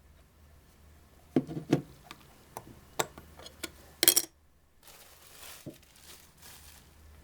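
Handling noises of small hard objects: a run of sharp clicks and knocks, a louder rattling clatter about four seconds in, then a soft rustle.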